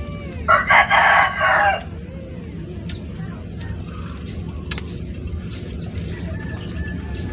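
A rooster crows once, loudly, starting about half a second in and lasting just over a second, over a steady low background noise.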